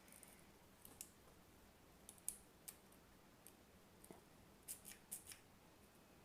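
Faint, irregular metallic clicks and scrapes of a curved lock pick working the pins of a dimple lock held under a tension wrench, with a quick cluster of ticks about five seconds in.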